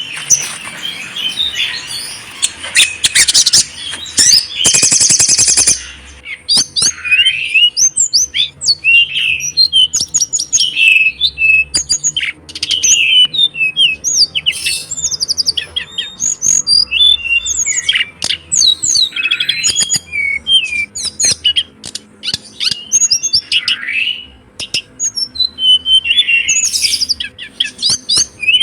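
Pet songbirds singing. A dense, high trill runs for about the first six seconds, then gives way to a fast, varied run of chirps, whistled sweeps and clicks.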